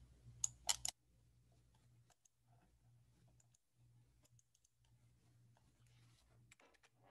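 A quick run of sharp clicks from a computer's mouse and keys just under a second in, then a few faint clicks over near silence.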